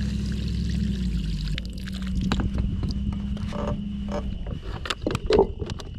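Plastic cooler being picked up and handled, with knocks and clatters that grow louder near the end, over a steady low hum that stops about four seconds in.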